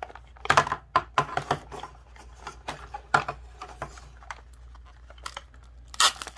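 Hands handling a plastic toy capsule and a foil wrapper: a string of light clicks and crinkles, with louder crackling about six seconds in as the foil bag is pinched and torn open.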